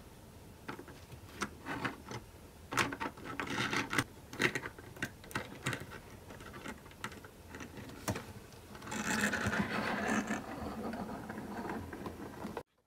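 Small plastic toys being handled and moved about: a run of irregular clicks and taps, then a denser rubbing, scraping stretch about nine seconds in, cutting off suddenly near the end.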